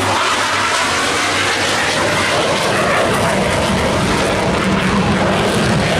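Loud, steady jet noise from a Blue Angels F/A-18 Hornet's twin General Electric engines during a low pass, growing deeper and fuller from about halfway through.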